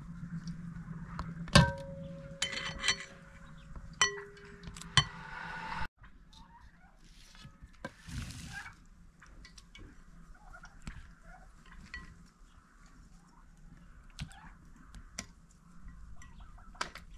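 Metal kitchen tongs clinking and tapping against a glass batter bowl as pieces of fish are dipped and lifted out. Two louder clinks ring briefly, about a second and a half in and again at four seconds; after that the taps are softer and sparser.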